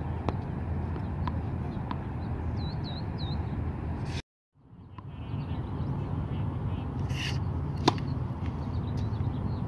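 Tennis ball bounced a few times on a hard court, then struck with the racket on a serve about eight seconds in, over a steady low outdoor rumble. A bird chirps three times about three seconds in, and the sound cuts out briefly just past four seconds before fading back in.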